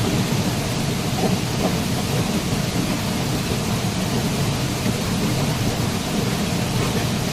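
Waterfall: a steady, full rush of falling water, deepest in its low rumble.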